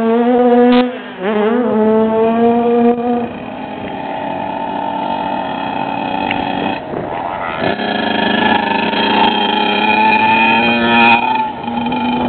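Motocross dirt bike engines running hard: one engine's pitch climbs, dips and climbs again in the first two seconds, then holds steady, and in the second half more than one engine note overlaps.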